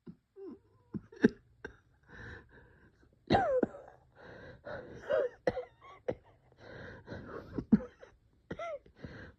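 A person coughing in repeated sharp fits, with wheezy, pitched breath sounds between the coughs that slide down in pitch: the coughing and wheezing of a bronchospasm.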